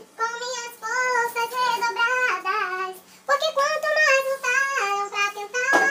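A high voice singing a slow melody in long held notes, pausing briefly about halfway through.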